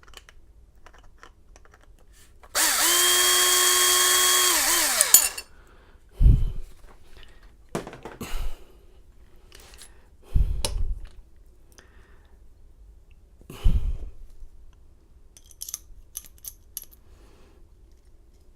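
Cordless drill/driver motor spinning up, running steadily for about three seconds, then winding down. After it come three dull knocks, a few seconds apart, and some light metallic clicks.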